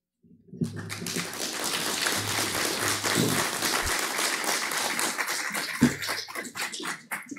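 Audience applauding, starting about half a second in and thinning to scattered claps near the end.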